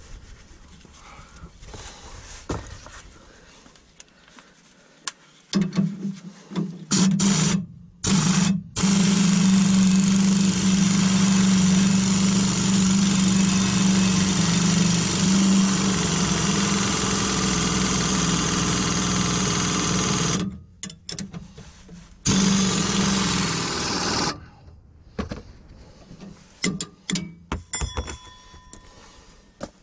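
Handheld pneumatic wrench on an air hose, running in bursts to spin the nut on a front sway bar end link: a steady hum with hiss, one long run of about ten seconds between short ones, stopping a few seconds before the end. A few light metal clinks of a hand wrench follow.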